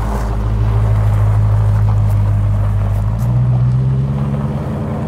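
Dodge Challenger engine idling after a cold start: a steady, loud, deep idle whose pitch steps up about three seconds in.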